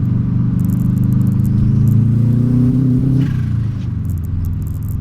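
Subaru Impreza GC8's turbocharged flat-four engine revving up gradually. About three seconds in the throttle closes, the revs drop, and there is a brief burst of turbo flutter (compressor surge).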